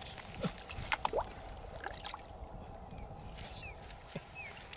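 Shallow puddle water splashing and sloshing in small, irregular splashes as hands grip and move a snakehead fish in it.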